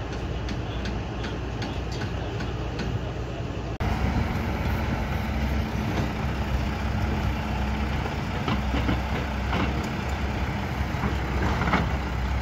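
A heavy diesel engine, that of a self-loading concrete mixer, running steadily with a low, even hum. About four seconds in, the sound jumps louder. Before that there is a quieter rumble with light clicks.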